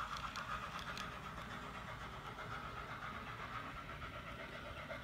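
Recorded steam-exhaust chuffing from the Soundtraxx Tsunami 2 sound decoder and megabass speaker in an HO-scale Bachmann Norfolk and Western 2-8-0 Consolidation model, a quick steady beat of about five chuffs a second as the locomotive works its train uphill. A few light clicks from the model cars on the track come in the first second.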